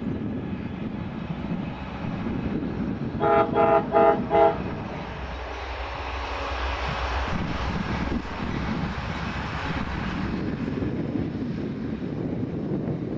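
Amtrak passenger train's horn sounding four short blasts a few seconds in, then the rushing rumble of the train running past, swelling and dying away about ten seconds in.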